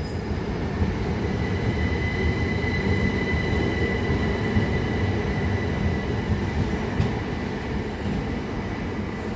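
Just-coupled Class 375 Electrostar electric multiple units standing at the platform, giving a steady low rumble with a thin, steady high whine over it.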